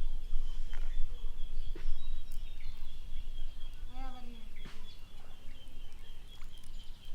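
Outdoor ambience: a low rumble, like wind on the microphone, under a steady high-pitched drone. One short bird call sounds about four seconds in.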